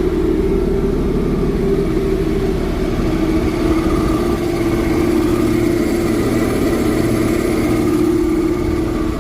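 Jeep Cherokee XJ engine idling steadily while its belt-driven AC compressor, converted into an on-board air compressor, runs and pumps air into a tire.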